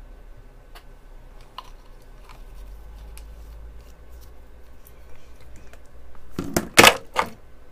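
Soldering tools being handled on a workbench: scattered faint clicks over a low hum, then a short run of much louder sharp clicks about six and a half seconds in.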